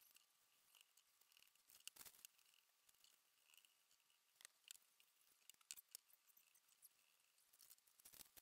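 Near silence, broken by faint scattered taps and rustles of paper and pencil being handled.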